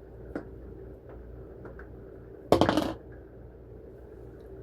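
Dice rolled onto a table: a short clatter of rapid knocks about two and a half seconds in, after a single light click near the start, with a faint steady hum underneath.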